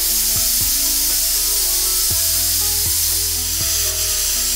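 Stovetop pressure cooker whistle: steam jetting out of the weight valve as a loud, steady hiss that starts abruptly. It marks the cooker at full pressure, the whistle that signals the pulao inside is cooked.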